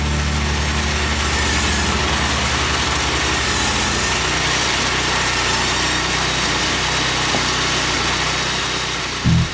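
Sawmill machinery running steadily with a loud, even mechanical noise, with a sudden louder burst near the end.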